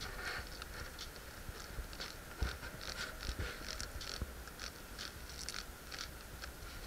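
Male silkworm moth fluttering its wings while coupled with a female in mating, giving an irregular soft crackle of small ticks and rustles over a low rumble.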